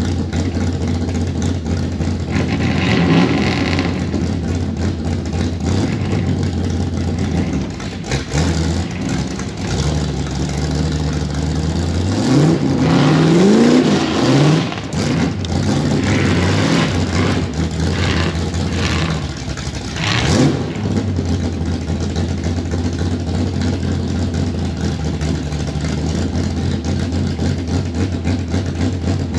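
Truck engine running steadily, revved up several times with rising pitch; the biggest run of revs is near the middle.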